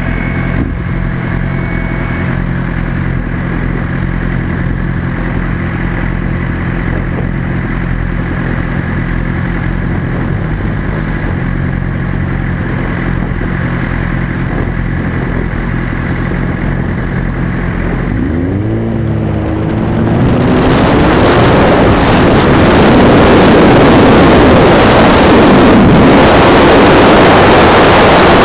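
Sportbike engine idling steadily for about eighteen seconds, then revving up as the bike pulls away and accelerates. From about twenty seconds in, loud wind rush on the helmet-mounted microphone covers most of the engine.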